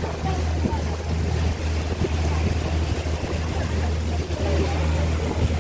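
Motorboat engine running with a steady low drone as the boat moves over the water, with wind on the microphone and water rushing past the hull.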